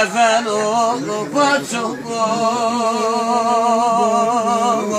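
A man singing a folk song unaccompanied: short phrases that move in pitch, then one long held note with a wide vibrato from about two seconds in.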